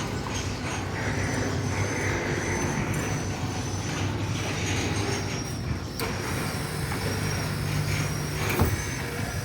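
A large engine running steadily with a low hum, with a couple of sharp knocks about six and eight and a half seconds in.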